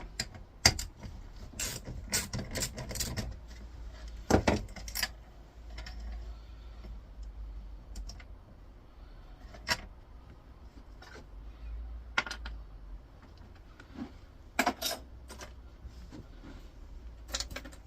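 Irregular metallic clicks, clinks and a few knocks from hand tools and small metal parts as a 13 mm bolt is undone on a computer monitor being dismantled, with a quick run of clicks a couple of seconds in.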